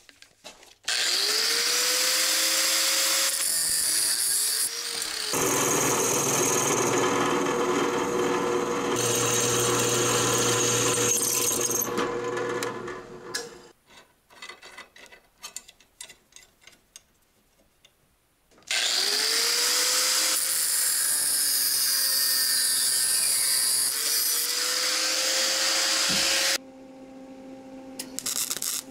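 Handheld electric power tool running in two long stretches, its motor pitch bending up and down as the speed changes, with a few seconds of quiet and light clicks of hardware being handled between them.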